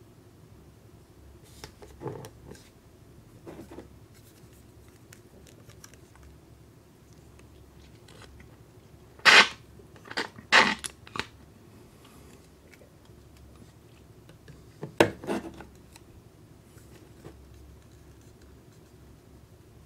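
Hollow plastic toy kitchen containers clacking as they are picked up and set down on a table: a few faint taps, then a cluster of three sharp clacks near the middle and two more about three quarters through.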